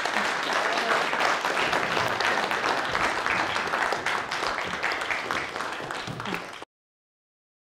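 Audience applauding with dense clapping that eases slightly and then cuts off abruptly about six and a half seconds in.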